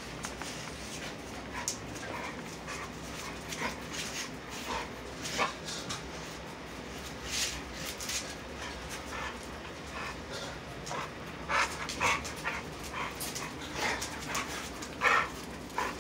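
An adult American bully dog play-fighting with its puppies: scattered short puppy whimpers and squeaks, panting and scuffling, with a few louder short sounds about twelve seconds in and near the end.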